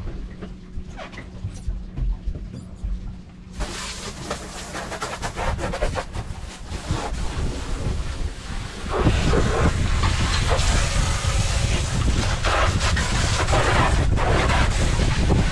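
Water spraying from a hose, starting with a sudden steady hiss about three and a half seconds in. Wind buffets the microphone from about nine seconds on.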